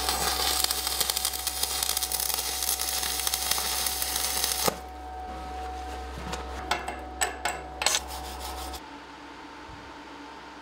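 Stick (MMA) welding with an RR12 rutile electrode on steel: the arc crackles and sizzles steadily for about five seconds over a low hum, then stops. A few sharp clicks follow while the hum goes on, and the hum cuts out near the end.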